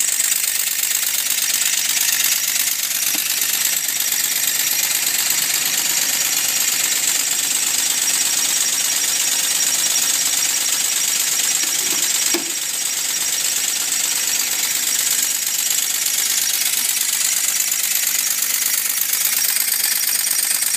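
Working model American La France fire engine running and pumping a water stream: a steady, high hissing mechanical noise, with a brief dip about twelve seconds in.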